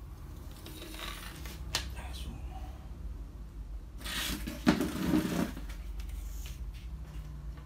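A laser printer fuser unit being handled while it is taken apart with pliers: light clicks and rubbing of its plastic and metal parts, with a sharp click about two seconds in. About four seconds in comes a louder scrape and knock, strongest just before the five-second mark, as the assembly is moved on the stone countertop.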